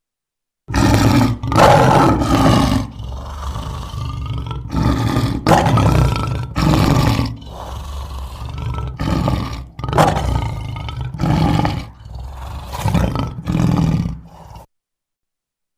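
A large animal roaring over and over, loud calls following one another with short breaks. It starts about a second in and cuts off suddenly about a second before the end.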